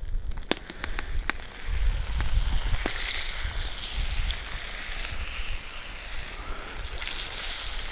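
Flour-dredged crucian carp sizzling in hot oil as they are laid into a cast-iron sadj pan. The sizzle builds about two seconds in and then holds steady.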